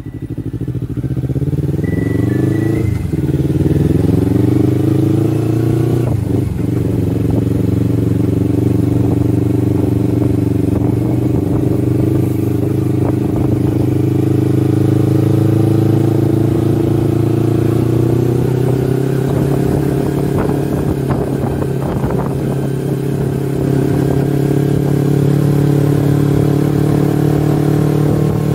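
Kawasaki Versys-X 250's parallel-twin engine heard from the rider's seat, rising in pitch over the first few seconds as the bike pulls away. It then runs fairly steadily at low road speed, with a brief dip in pitch about six seconds in.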